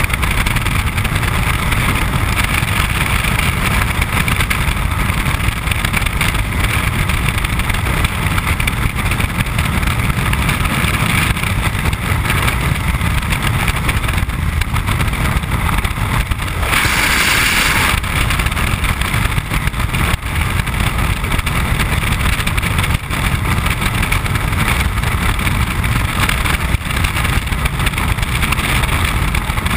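Freefall wind rushing steadily over a helmet-mounted camera's microphone, heavy low buffeting, with a brief brighter hiss about seventeen seconds in.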